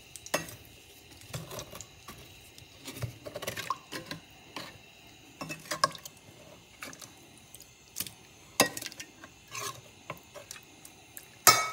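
A metal utensil clinking and scraping against stainless-steel pots in irregular knocks, as cooked oxtails are lifted from one pot into another, with one loud ringing clank near the end.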